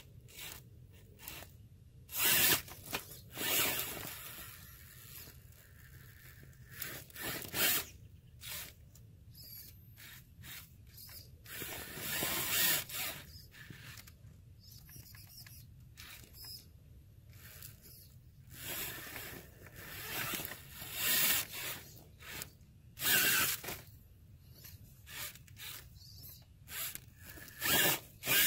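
RC rock-crawler truck clambering over a pile of dry branches and twigs, its tyres scrabbling on bark and crackling through the twigs in irregular short bursts, with quieter pauses between.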